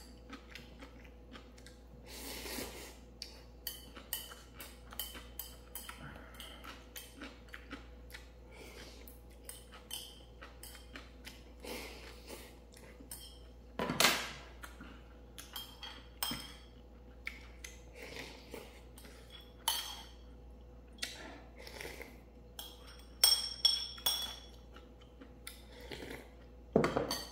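Eating utensils clicking and clinking against a bowl of ramen in scattered taps, with a few longer slurps and a cluster of louder ringing clinks near the end.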